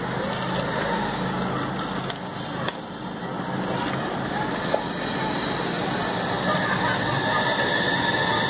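Soaked lentils tipped and scraped by hand from a metal bowl into a pressure cooker, with a couple of light clicks of the bowl or fingers against metal, over a steady background rumble.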